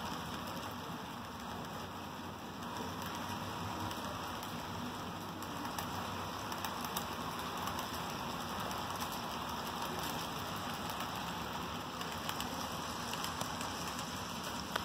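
HO scale model freight train rolling along the track: a steady rolling noise from the long string of cars, with a few light clicks.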